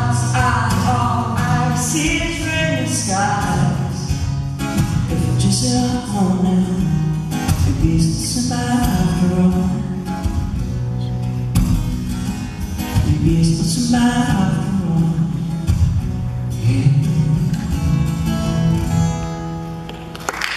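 Man singing with a strummed acoustic guitar, a little quieter near the end.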